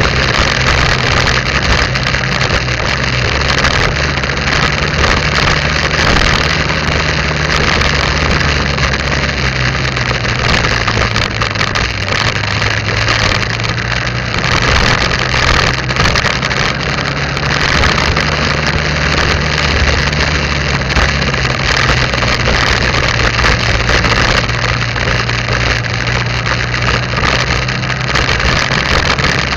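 Motorbike engine running steadily while riding, its note dipping a little and rising again about halfway through, over a constant rush of wind and road noise.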